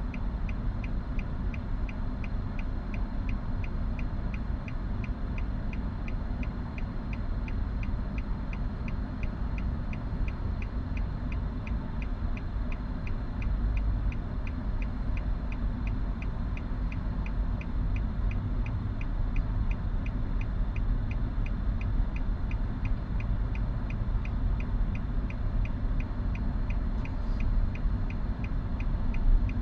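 Even, regular ticking that keeps going without a break, over the low steady rumble inside a car waiting at a traffic light.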